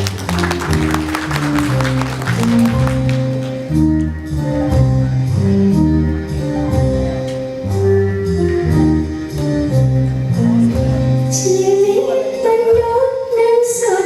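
Instrumental introduction of a song: band accompaniment with a stepping bass line and chords, with a higher melody line coming in about eleven seconds in.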